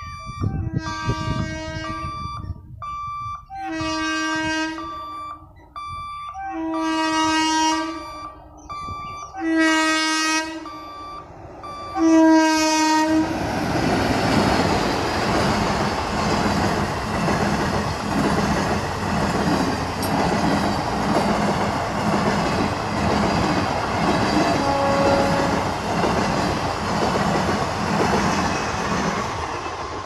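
Indian Railways passenger train sounding its horn in five blasts of about a second each, a few seconds apart, as it approaches a level crossing. About thirteen seconds in it rushes past, with loud wheel and coach noise and a rhythmic clatter over the rail joints.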